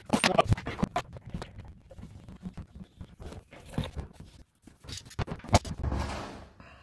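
Hands handling faucet parts and packaging: irregular crinkling, scraping and clicking, with sharper knocks near the start and about two-thirds of the way through.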